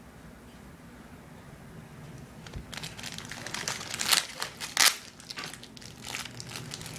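Plastic toy packaging crinkling as it is handled and opened, starting about three seconds in, with two louder crackles near the middle.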